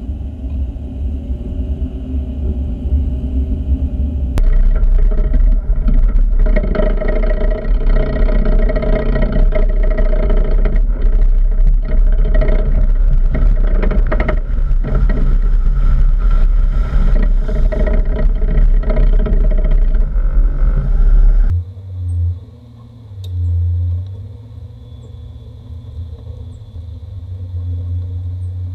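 Land Rover Discovery driving a rough bush track, with engine and road rumble. From about four seconds in it is much louder as it drives through a creek crossing, water splashing over the microphone. About two-thirds of the way through the sound drops suddenly to a quieter, steady engine hum.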